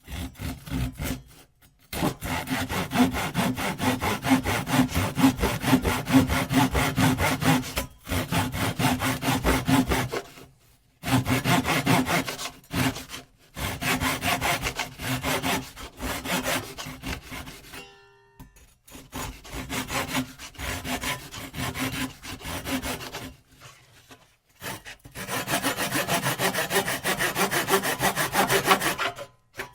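Hand saw cutting through wood in fast back-and-forth strokes, in several runs of a few seconds each with short pauses between them.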